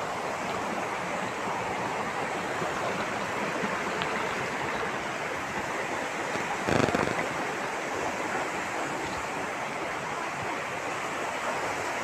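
Steady rush of a waterfall and its stream tumbling over boulders, with a brief louder thump just past halfway.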